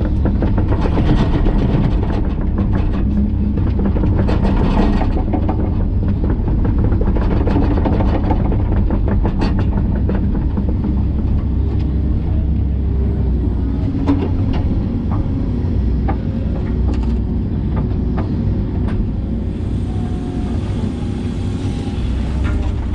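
Hitachi 130LCN excavator's diesel engine running steadily under work, with scattered knocks and clicks from the machine digging.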